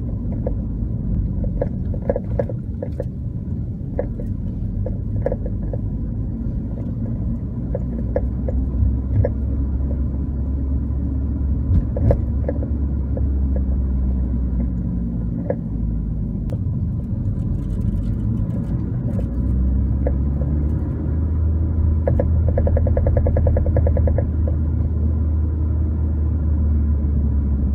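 Car on coilover suspension driving, a steady low road rumble with intermittent clunks and knocks from the suspension, and a quick run of rattling knocks near the end. The cause of the clunking is unknown to the owner.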